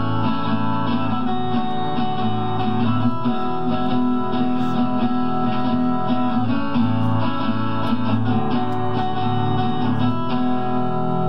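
Guitar music: plucked and strummed notes playing continuously at an even level.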